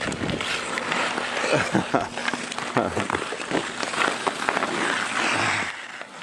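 Hockey skate blades scraping and carving on outdoor ice, with hockey sticks clacking against the ice and puck in many sharp clicks. A longer scraping hiss comes near the end, then the sound drops off.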